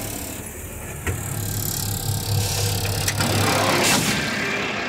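Yard truck's engine idling with a steady low hum, with a couple of short knocks and rattles about one and three seconds in.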